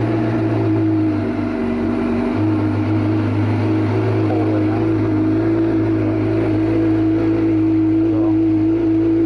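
Suzuki GSX-R sport bike's inline-four engine idling steadily through an M4 GP slip-on exhaust with its sound baffle fitted.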